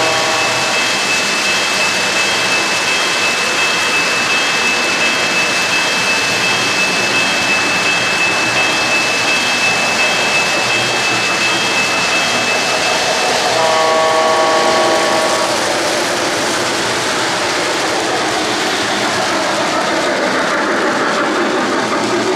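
O-gauge model trains rolling on three-rail track, with a steady running rumble and a high steady whine through the first half. The locomotive's onboard sound system sounds a brief chord-like whistle signal at the start and again, for about two seconds, about 14 seconds in.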